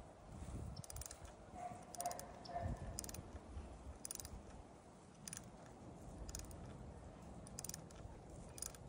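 Ratchet wrench clicking in short, slow strokes, roughly one burst of clicks a second, as it turns the threaded rod of a coil-spring compressor on a Mini Cooper strut.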